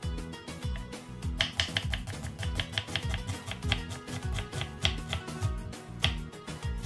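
Kitchen knife slicing through an onion onto a wooden cutting board: a run of crisp, uneven cuts starting about a second and a half in, over background music with a steady beat.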